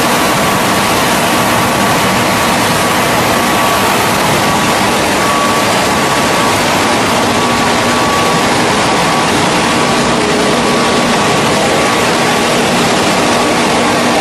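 Hydraulic single-spindle veneer peeling lathe running while it peels face veneer. It makes a loud, steady machine noise with a constant whine through it.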